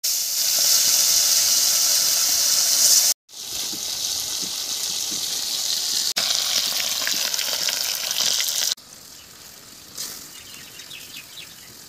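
Fish frying in hot oil in a metal wok, a loud, steady sizzle broken by two abrupt cuts. Near the end it drops to a much quieter sizzle with scattered crackles as the fish cooks in curry gravy.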